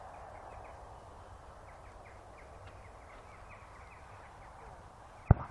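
Quiet outdoor background with faint, scattered bird chirps, and a single sharp knock near the end.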